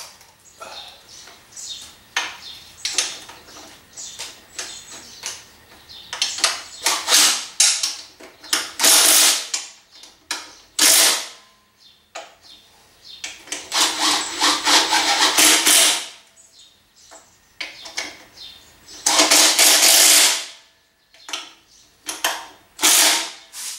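Electric impact driver run in short bursts of one to two seconds, tightening bolts on a Lawn-Boy mower engine, with clicks and knocks of tools and parts in between.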